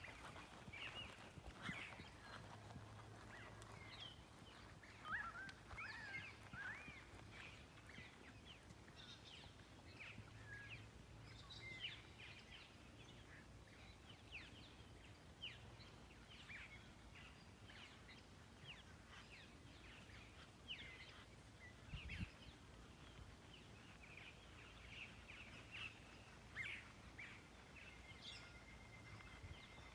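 Faint birdsong: many short chirps and whistled notes from several birds, with one low thump about 22 seconds in.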